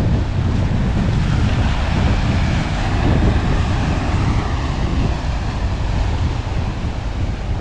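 Wind buffeting the microphone over ocean surf washing on a rocky shore; the surf's hiss swells a couple of seconds in.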